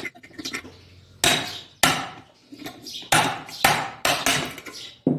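Hammer blows on a flattened screwdriver used as a drift, driving the end cover off a washing machine motor to get at its ball bearings. There are about seven sharp metal strikes at uneven intervals, each with a short ring.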